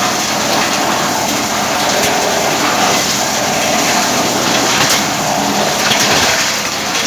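Wood chipper running loudly with a steady, dense rushing noise and a few faint cracks.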